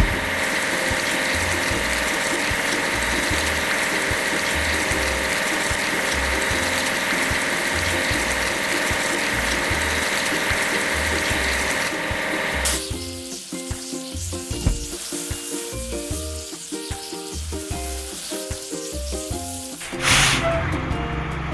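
Cartoon washing sound effect: a steady hiss of spraying water over background music with a bass beat. The hiss stops about thirteen seconds in, leaving the music, and a brief whoosh comes near the end.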